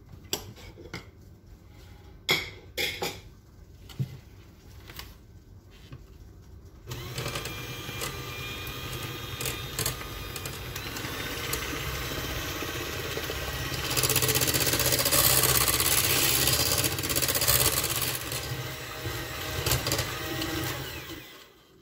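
Electric hand mixer running steadily, its beaters whirring through cooked caramel icing in a stainless steel pot. It grows louder about halfway through and stops shortly before the end. A few clicks and knocks come before it starts.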